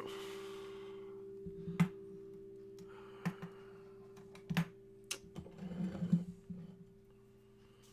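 Acoustic guitar strings ringing on after a chord and slowly fading away. Several light knocks and taps are scattered through.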